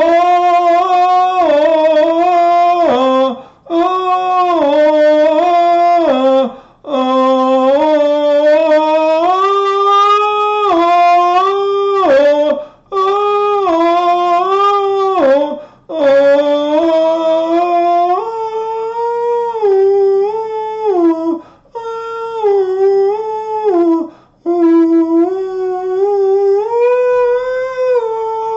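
A man singing unaccompanied with no words, holding long vowel notes that glide up and down between pitches. He breaks for a breath every few seconds, and the notes climb higher toward the end.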